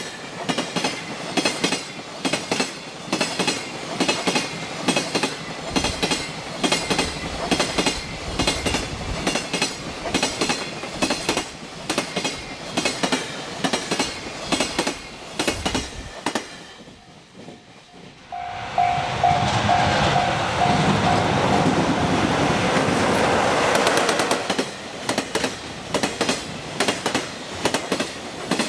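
Freight train wagons' wheels clattering over rail joints at speed: a rapid, regular clickety-clack. About 16 s in, the clatter drops away for a couple of seconds. A louder steady rush follows, with a held tone for about three seconds, and then the joint clatter returns.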